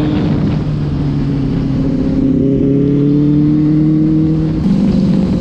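Benelli 600i inline-four motorcycle engine pulling at road speed, its note slowly rising, then stepping down in pitch near the end, over rushing road and wind noise.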